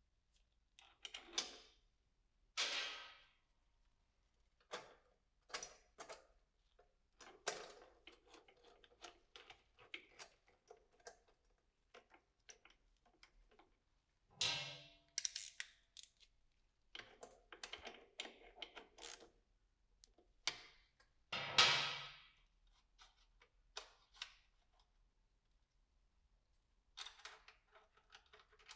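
Scattered small metallic clicks, clinks and taps of bolts and a hand tool as a motorcycle slip-on silencer is screwed onto its mounting bracket, with a few louder knocks.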